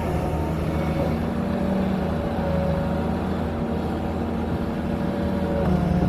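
Doosan excavator's diesel engine running steadily, with a low hum and a steady whine above it.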